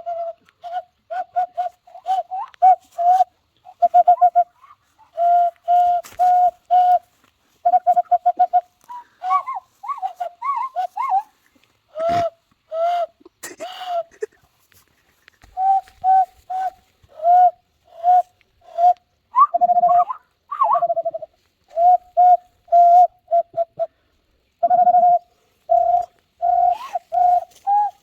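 People whistling imitations of bird calls, dove-like coos among them: runs of short, repeated notes on one low, pure pitch, now and then sliding upward, with brief pauses between the runs.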